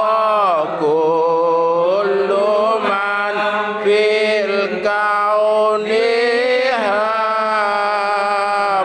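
Male voices chanting an Arabic sholawat (devotional praise of the Prophet) without instruments, long drawn-out notes that slide down and back up between phrases.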